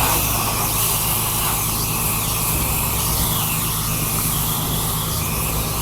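Pressure washer engine running steadily, with the hiss of water spraying.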